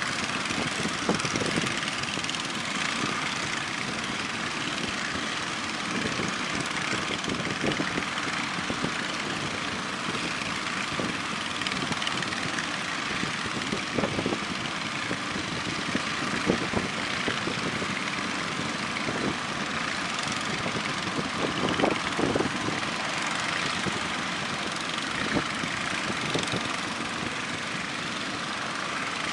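Heavy surf breaking at a river mouth: a steady rushing noise of waves, with a few short sharper knocks.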